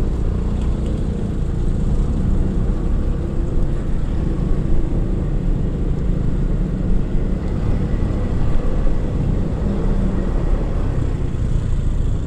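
Steady engine and road noise of a motorcycle being ridden in traffic, picked up by a mic on the rider.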